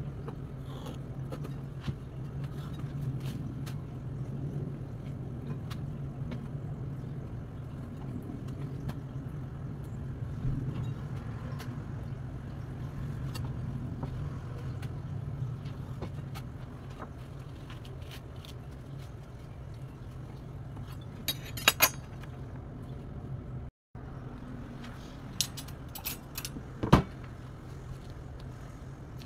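Kitchen knife cutting through a stack of thin wrapper sheets on a bamboo cutting board: light taps and scrapes over a steady low hum. Near the end come a few sharp clicks and clinks.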